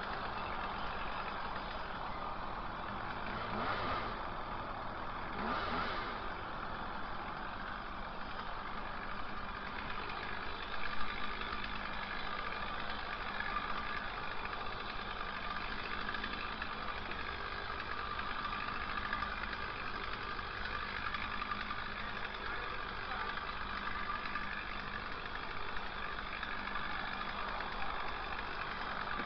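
Chainsaw engine running steadily, swelling briefly twice a few seconds in.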